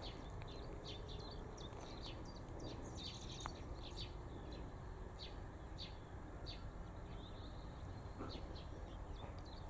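Small birds chirping in short, irregular calls over a faint, steady low rumble of outdoor background noise.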